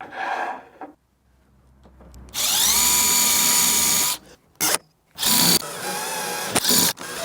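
Power drill driving screws to mount a hinge: the motor whines up to speed and runs about two seconds, gives a short burst, then runs again for about two seconds.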